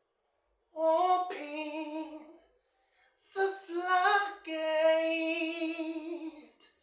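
A woman singing a slow worship chorus, unaccompanied, in two phrases; the second ends on a long held note.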